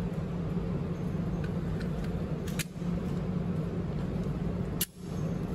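Steady low hum of an indoor shooting range's ventilation, broken twice by sharp gunshots about two seconds apart. Each shot is followed by a brief dip in level.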